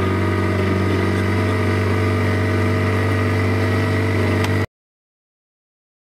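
Outboard motor of a small wooden boat running steadily under way, a constant hum with no change in speed. It stops abruptly about four and a half seconds in, leaving silence.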